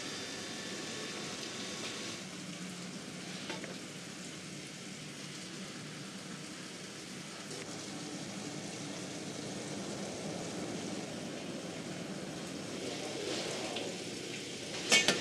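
Steady background hiss in a fish-cutting workspace, with a few sharp knocks on the cutting board shortly before the end as the knife goes through a bluefin tuna loin.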